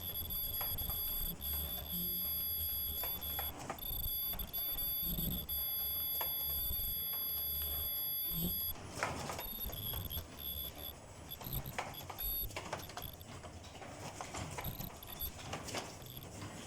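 Fully automatic mask-making machine running: a steady high-pitched whine over a pulsing low hum. About halfway through the whine fades, leaving irregular mechanical clicking and clatter.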